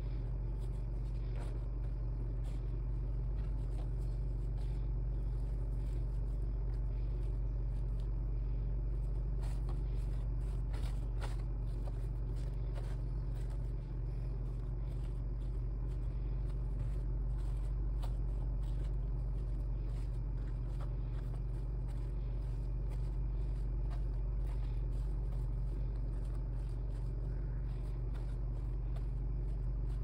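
A steady low rumble at an even level, with a few faint clicks and rustles over it.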